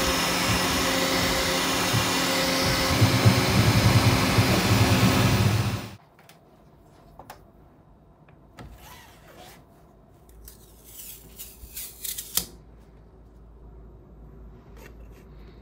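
Bambu Lab 3D printer printing: loud steady fan noise with motor whine from the toolhead moves, getting louder a few seconds in and cutting off abruptly about six seconds in. After that, faint clicks and rustles as the build plate is pulled out and the printed bookmarks are handled.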